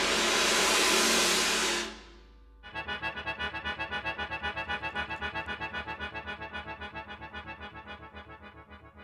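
Soundtrack music: a swelling rush of noise fades out about two seconds in. After a short gap, a sustained chord begins, pulsing rapidly at about seven pulses a second and slowly fading.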